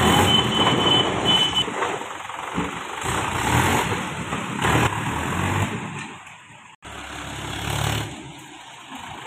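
Mahindra Yuvo 475 DI tractor's diesel engine running as the tractor is driven past on a test run after its star-gear shim and brake repair. The sound cuts off abruptly about seven seconds in and resumes quieter, with a motorcycle passing.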